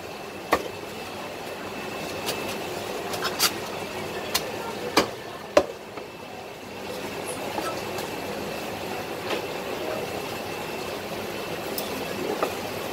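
Cleaver chopping roast duck on a round wooden chopping block: a handful of sharp chops at irregular intervals, the loudest pair about five seconds in and a few more near the end, over a steady background din.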